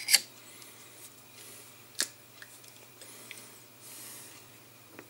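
Handling of a small plastic Citadel paint pot: a sharp click right at the start and another about two seconds in, with faint ticks and soft rustling between.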